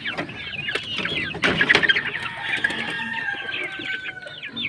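Chickens in a wooden coop, with many short high chirps falling in pitch and a long call sliding slowly down in pitch through the second half. A few sharp knocks come about a second and a half in.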